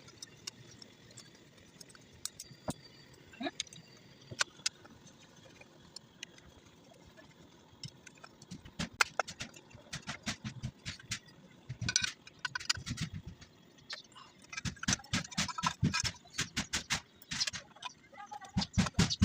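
Hand tools and metal alternator parts clicking and clinking on a workbench, with some duller knocks. A few isolated clicks come at first, then after a short lull a rapid, dense run of clinks and knocks fills the second half.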